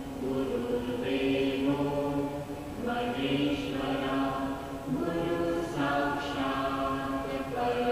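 Background music of voices chanting in long held notes, the pitch shifting every second or two.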